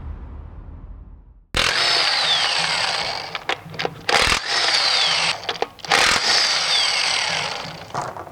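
A power tool running in three long bursts with short breaks and a few sharp knocks between them. Each burst starts with a faint whine falling in pitch.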